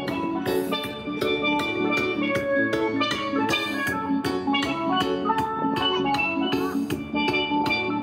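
Steel pans playing a lively melody of quick struck notes over a steady drum beat.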